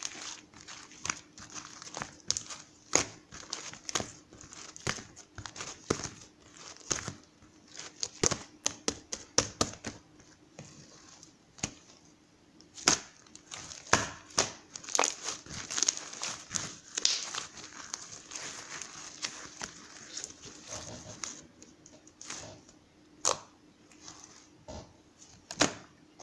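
Irregular crinkling and crackling with many sharp clicks, as of material being crumpled or handled close up, over a faint steady hum.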